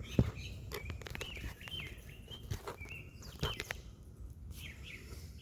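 Birds chirping in the background, with a few scattered sharp clicks and knocks, the loudest just after the start.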